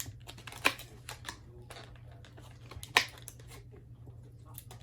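Aviation tin snips being unpacked: scattered sharp clicks and light crackling of the packaging, with two louder clicks, one near the start and one about three seconds in.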